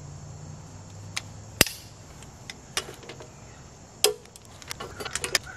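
Click-type torque wrench on the Dana 60's carrier bearing cap bolts: two sharp clicks about two and a half seconds apart as it breaks at its 60 ft-lb setting, with fainter ticks between and after.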